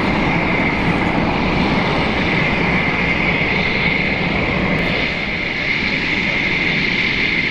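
Jet aircraft running on the ground: a steady high whine over a constant rushing noise.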